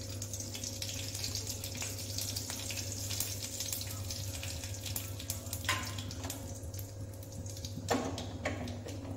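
Cumin, black mustard seeds and dry red chillies sizzling and crackling in hot mustard oil in a steel kadhai, the spluttering of a tadka being tempered. It is a steady hiss dotted with fine pops, with a couple of brief knocks late on.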